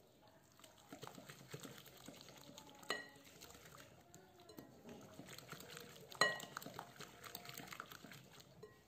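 Silicone whisk stirring a thick semolina batter in a glass bowl: faint, irregular strokes, with two sharper clinks about three and six seconds in.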